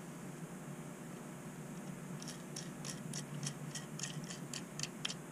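Light, quick clicking, about five clicks a second, starting about two seconds in, from the screws, washers and mount hardware being worked by hand, over a steady low hum.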